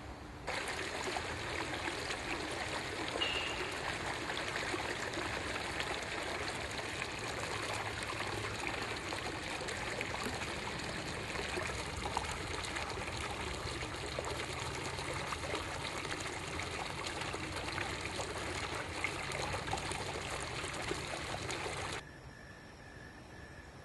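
Stream running steadily, a constant rushing of water that starts abruptly and cuts off sharply near the end.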